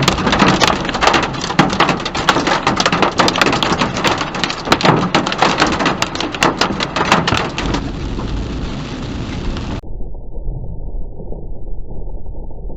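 Heavy rain pelting a hard surface, a dense patter of sharp drop impacts over a steady wash. About eight seconds in, the pelting eases and a steady low rumble takes over, sounding muffled near the end.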